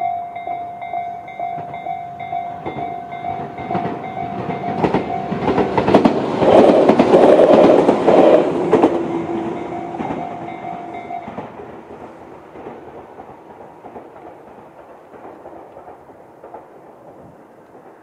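Japanese level-crossing electronic warning bell (Tobu "sound C" type) ringing in a steady pulsed tone while a Tobu 10030 series electric train runs over the crossing, its wheels clattering over the rail joints, loudest about six to nine seconds in. The bell stops about eleven seconds in and the train noise fades away.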